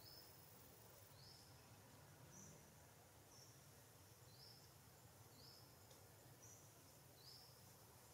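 Near silence with a faint high chirp repeating about once a second, each one short and slightly rising, alternating between two pitches.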